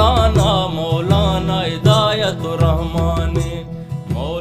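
Balochi folk song music: a wavering, ornamented melody line over a steady low drum beat, starting to fade out near the end.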